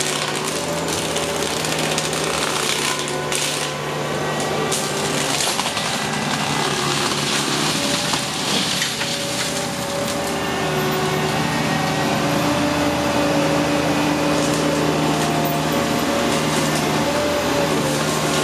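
Forestry mulcher running under load, its mulching head grinding brush and wood. A steady engine drone sits under a continuous crackle of splintering wood.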